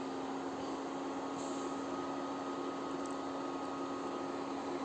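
Electric stove humming steadily: a constant low hum with a fainter high whine over a soft hiss.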